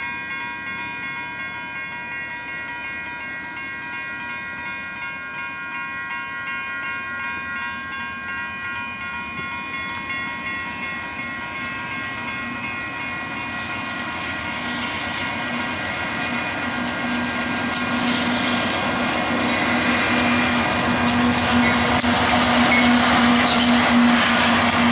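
Freight train's diesel locomotives drawing near and passing, their engine sound and the clatter of wheels on rail growing louder through the second half. A steady ringing of several tones fades out around the middle.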